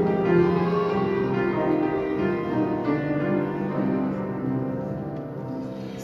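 Piano playing a slow introduction of held chords, dying away near the end just before the women's choir comes in.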